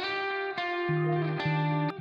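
Background music: guitar playing a melody of plucked notes at a steady pace, with a bass line coming in about a second in.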